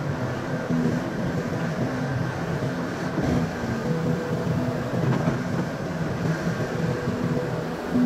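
SDLG crawler excavator's diesel engine running under load as it digs, a steady drone with a hum that pulses every half second or so.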